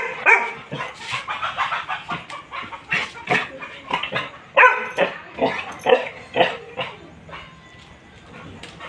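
Labrador retriever barking in a run of short, irregular barks, the loudest about four and a half seconds in, growing sparser near the end.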